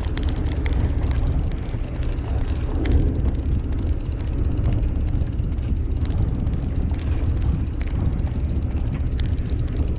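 Steady low rumble of the fishing boat's engine running at idle.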